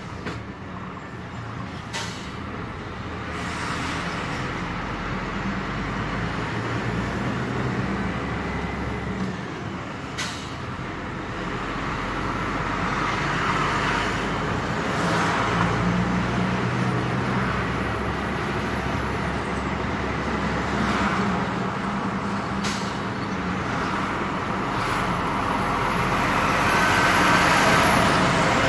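DAF CF 85.410 truck's six-cylinder diesel engine heard from inside the cab while driving. The engine note shifts in steps as gears are changed, with several short, sharp air hisses or clicks.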